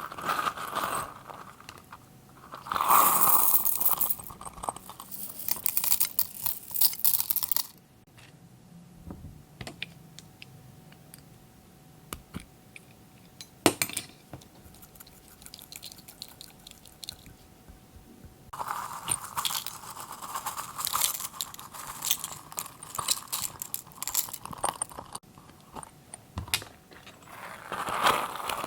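Glossy slime being squished and folded by hand: bursts of sticky crackling and popping, with a quieter stretch of only scattered clicks in the middle.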